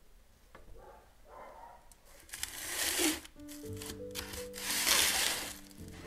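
Two loud bursts of scraping and rustling as the wood-fired oven is worked at its mouth, the second one longer. Soft background music with held notes comes in about midway.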